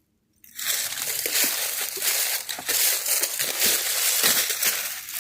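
Dense crunching and rustling, as of someone pushing through dry leaves and brush, starting about half a second in.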